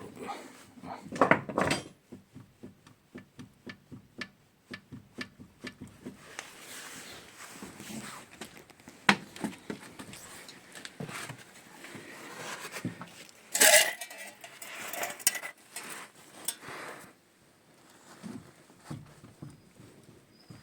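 Metal clinking and knocking of parts and hand tools being handled: a couple of loud clanks near the start, a run of light knocks at two to three a second, and another loud clank past the middle.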